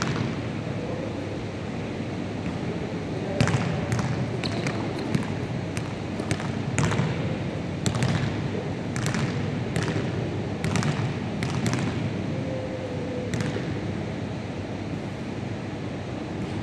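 Basketballs bouncing on a wooden gym floor: more than a dozen irregularly spaced thuds of dribbling, over a steady low background noise.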